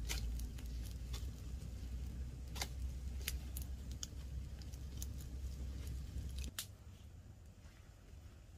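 Open wood fire crackling, with scattered sharp pops, while a chicken is held in the flames to singe it. A low rumble under the crackle stops suddenly about six and a half seconds in, and the crackle carries on fainter.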